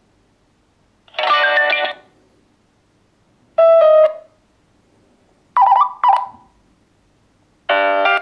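Nokia X7 stock phone tones playing: four short, different pitched tones with pauses of about a second and a half between them, the third a quick double note.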